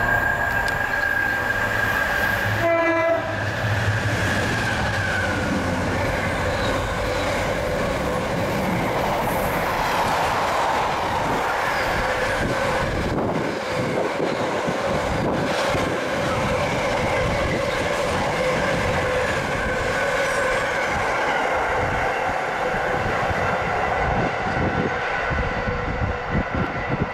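A train horn sounds for about two and a half seconds, then a train passes with continuous running noise and a steady whine.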